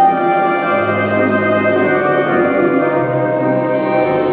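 Instrumental music with held orchestral-style chords over a bass line that changes note every second or so.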